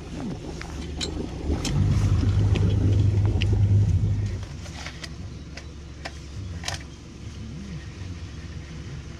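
Boat engine run up under throttle for about three seconds while the boat is manoeuvred, then dropping back to a low idle, with scattered light ticks.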